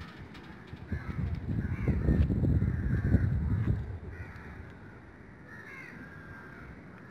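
Crows cawing repeatedly, in short calls. A louder low rumble runs from about a second in until about four seconds in.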